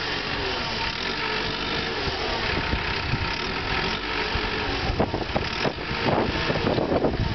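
Caterpillar crawler dozer's diesel engine running steadily as the machine tips over the crest of a dirt mound and settles level, with a run of sharp knocks and clanks in the last couple of seconds.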